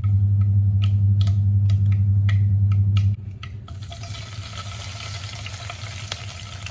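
Mustard seeds popping in hot coconut oil, sharp crackles over a steady low hum. About three seconds in, the hum stops and a steady sizzle follows as curry leaves and dried red chillies fry in the oil.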